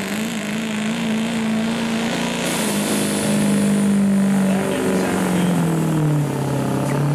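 Ford Super Duty diesel pickup running flat out under load as it drags a pulling sled, a loud steady diesel note with a thin high whine above it. Over the last few seconds the engine's pitch sinks as it is pulled down by the sled's growing load.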